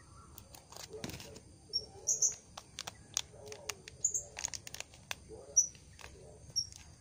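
Scissors snipping and a foil seed packet crinkling as it is cut open, in a run of short sharp clicks. Short, high bird chirps come in the background a few times.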